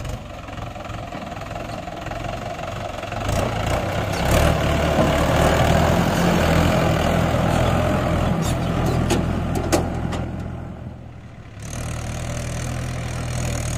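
Heavy diesel engine running under load. It grows louder about four seconds in and holds there, eases off briefly about ten to eleven seconds in, then runs steadily again.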